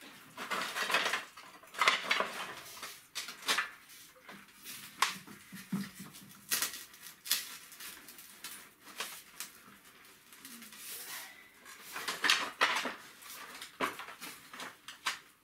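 Grey plastic sewer pipes and fittings being handled and fitted together: irregular clicks, knocks and scraping of plastic on plastic.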